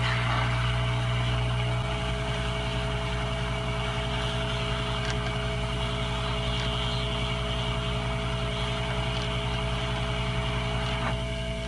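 Hot air rework station blowing steadily over a circuit board, with a constant low hum, while small surface-mount resistors are reflowed and moved; the airflow noise drops about eleven seconds in.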